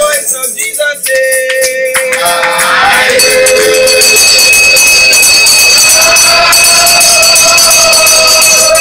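Brass handbell shaken rapidly and continuously, its ringing starting about three seconds in, over congregational singing.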